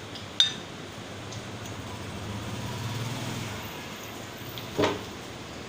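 Two sharp knocks about four seconds apart, with a low rumble swelling and fading between them.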